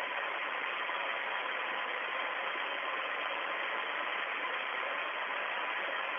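Steady hiss of static on an open spacecraft-to-ground radio link, with a faint steady tone underneath.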